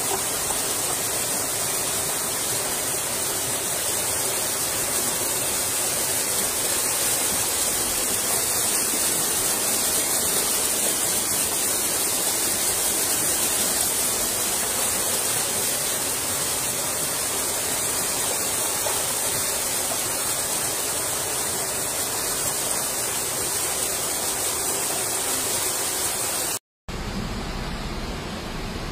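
Fast-flowing floodwater rushing through a street, a loud steady roar of water. It cuts out briefly near the end and gives way to a lower, steadier rumble.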